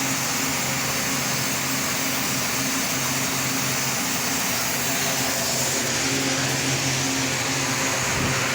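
Steady machinery running: a constant low hum with a broad, even hiss over it.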